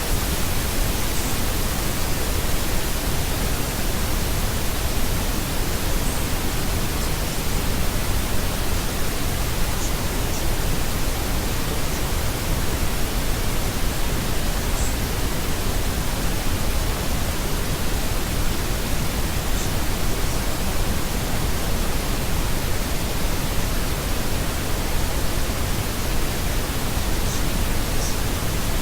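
Steady, unchanging white noise: an even hiss across the whole range, with no pitch and no rhythm.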